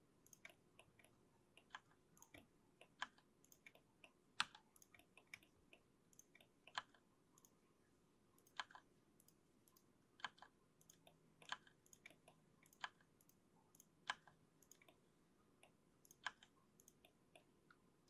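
Faint, irregular clicks of a computer mouse and keyboard, one every second or two, some louder than others, over near silence.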